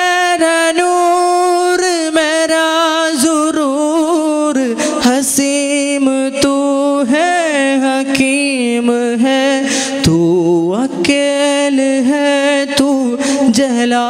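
A solo male voice sings an Urdu hamd, a devotional song praising God, into a microphone with no instrument heard. He holds long, drawn-out notes and ornaments them with melodic turns, dipping lower about ten seconds in before rising again.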